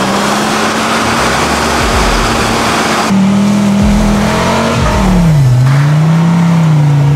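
Off-road engines revving hard at high, steady rpm, with a heavy rush of spinning tyres flinging mud. About three seconds in it gives way to a buggy's engine held high, whose pitch then drops, rises briefly and falls again.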